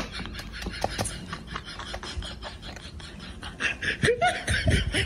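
Cat crunching dry kibble from a bowl, rapid irregular crunches that grow louder in the last couple of seconds. A few short vocal sounds come in about four seconds in.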